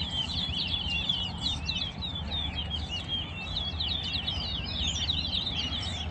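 Caged towa towa (chestnut-bellied seed finch) singing a fast, unbroken, high-pitched twittering song.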